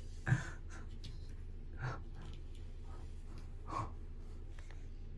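A man's soft, nervous breaths or sighs, three short ones, over a low steady hum.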